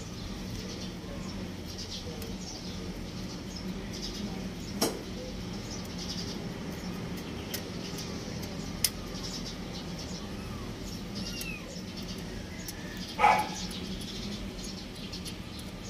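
A steady low hum with a few sharp clicks and faint short chirps; about thirteen seconds in, a single short, loud animal cry.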